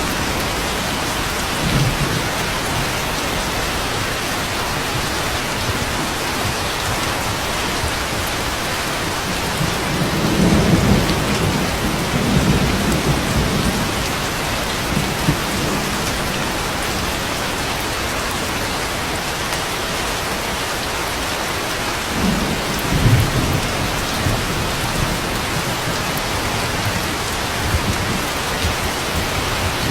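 Steady rain with low rolling rumbles of thunder, about ten seconds in, again a little past twenty seconds, and once more at the very end.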